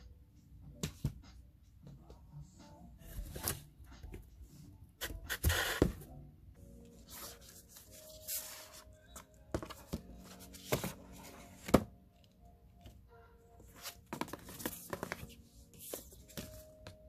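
Bubble wrap and a plastic sleeve rustling and crinkling in irregular bursts as they are handled and pulled from a box, with a few sharp clicks and scrapes of cards. Soft background music with held notes comes in about six seconds in.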